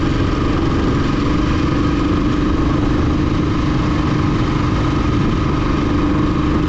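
Motorcycle engine running at a steady cruising speed while riding, its pitch holding level, under a constant rush of wind and road noise.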